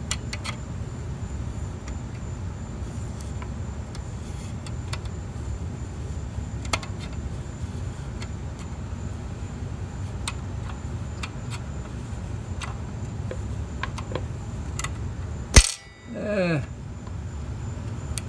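Small metallic clicks and taps from a valve spring compressor being worked on a small engine's exhaust valve spring, over a steady low rumble. Near the end, a single sharp loud snap as the socket bracing the compressed spring pops out, followed by a brief startled vocal exclamation.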